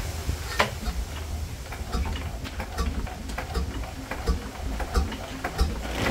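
Lister JP1 single-cylinder water-cooled diesel engine catching after hand cranking and running on its own, with an even ticking clatter over a low pulsing exhaust beat. A sharp knock comes about half a second in.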